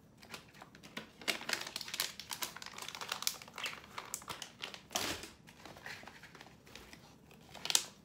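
Plastic bird-treat pouch crinkling and rustling as it is handled, in dense irregular crackles, loudest just before the end.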